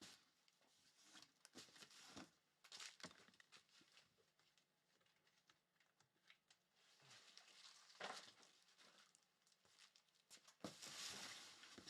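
Faint rustling and crinkling of trading cards and foil card-pack wrappers being handled, in scattered short bursts, with a longer crinkling burst near the end.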